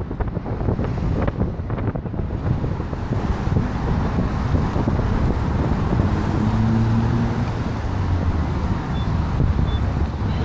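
Wind rushing over the microphone of a phone carried on a bicycle riding downhill, mixed with road traffic going by. About six seconds in, a vehicle's engine hum stands out for a couple of seconds.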